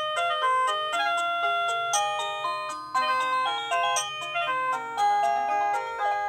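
INNLIFE wireless doorbell chime receiver playing one of its 36 electronic melody tunes: a string of clear, bell-like synthesized notes, one roughly every second.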